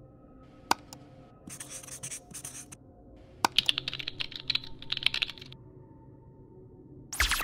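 Computer keyboard typing in a quick run of keystrokes for about two seconds, after a single sharp click about a second in. A loud, short burst of noise comes near the end.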